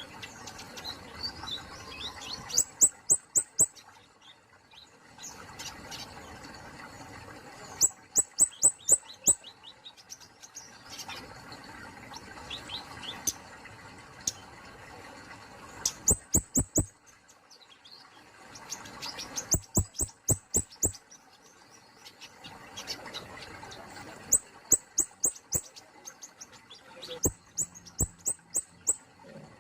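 Kemade polos singing: quick bursts of five to seven sharp, very high notes, repeated every few seconds, with softer chirps in between.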